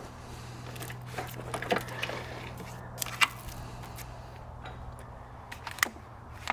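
Scattered light clicks and knocks, the sharpest about three seconds in, over a steady low hum.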